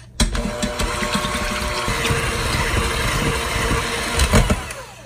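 Electric hand mixer running, its beaters whipping chilled cream in a stainless-steel bowl; the motor starts abruptly just after the start, with a steady whine and the whir of the beaters in the cream, swells briefly and then winds down near the end.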